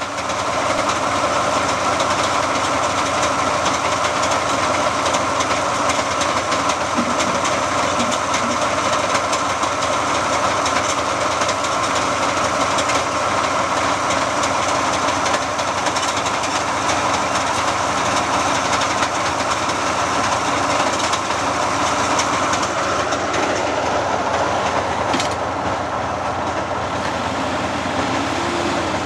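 Crawler bulldozer's diesel engine running steadily under load, with metallic clanking from its tracks and gear.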